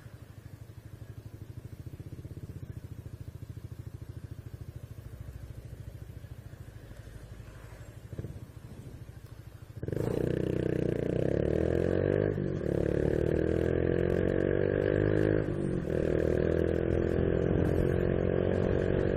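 Honda Biz 125's small single-cylinder four-stroke engine running under way. About ten seconds in it suddenly gets much louder as it is accelerated hard, with two brief dips in the engine note a few seconds apart.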